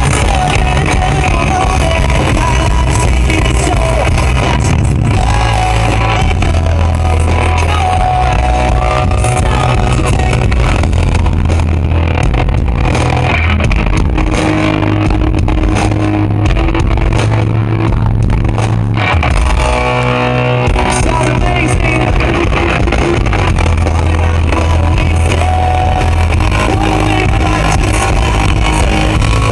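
Pop-punk band playing a song live, with electric guitars, drums and sung vocals, heard loud from within the crowd. The heavy bass and drums drop out briefly about two-thirds of the way through, then come back in.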